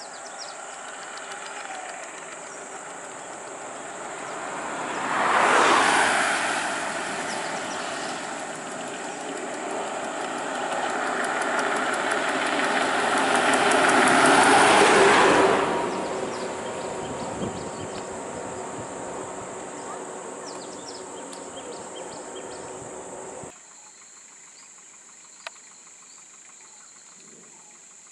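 Diesel buses passing close by, one after another: the engine and road noise swells to a peak about six seconds in and again around fifteen seconds in, then fades. A steady high insect chirring runs underneath, and the traffic noise cuts off abruptly a few seconds before the end.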